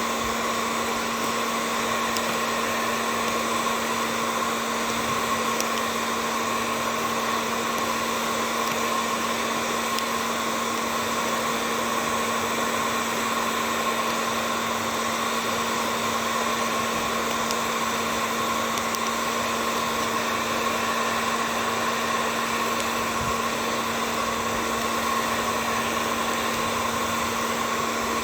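A small electric motor running steadily, an unchanging hum with a whine on top.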